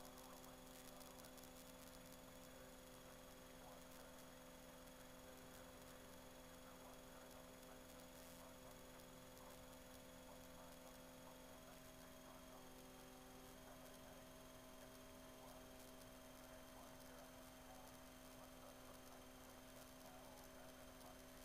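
Near silence: a faint, steady electrical hum made of several constant tones, with no engine or rotor sound.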